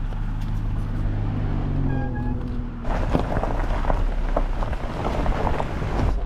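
Jeep running slowly on a dirt trail: first a steady low engine note, then from about three seconds in the tyres crunching and popping over loose gravel, with a rush of wind.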